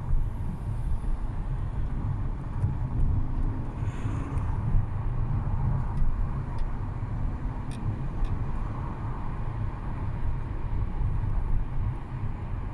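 Audi A3 1.6 TDI four-cylinder diesel engine running steadily at low revs, with the rattle that the owner hears at low revs when the engine is cold.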